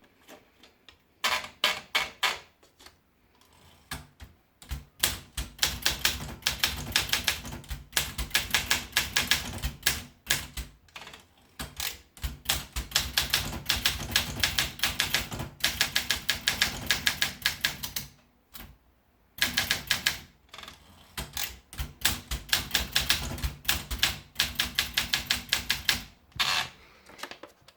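Olympia SM9 manual portable typewriter being typed on: quick runs of sharp keystrokes broken by a few short pauses.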